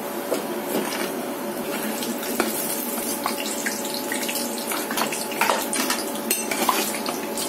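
Mutton patties deep-frying in hot oil in a pan, a steady sizzle, with a metal spoon clicking against the pan now and then as it moves them.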